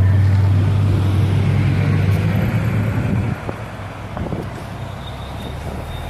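Low, steady engine hum of a nearby motor vehicle, dropping off suddenly about three seconds in to quieter road traffic noise.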